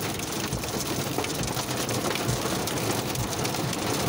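Heavy rain mixed with small hail hitting the car's roof and windshield, heard from inside the car as a dense, steady spatter of many small impacts.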